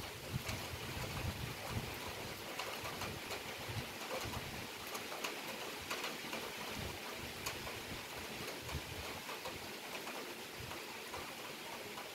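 Heavy rain shower falling steadily: an even hiss with scattered close drop ticks. Wind buffets the microphone in uneven low rumbles, more in the first half.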